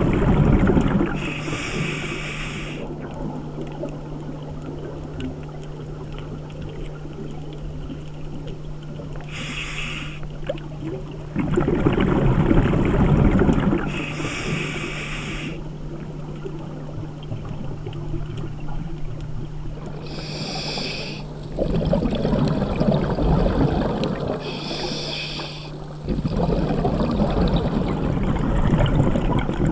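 Scuba diver breathing through a regulator underwater: a short hiss on each inhale, then a longer bubbling rumble as the exhaled air bubbles out. There are about five breaths in a slow, even rhythm over a steady low hum.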